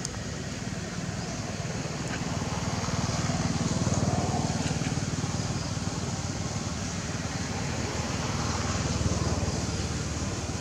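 Steady rain hiss, with a low rumble that swells and fades twice.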